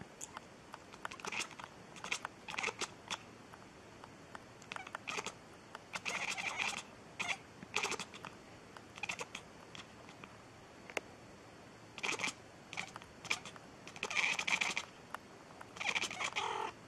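White domestic cat making weak, breathy, near-voiceless meow attempts, several short raspy squeaks, amid many small sharp clicks.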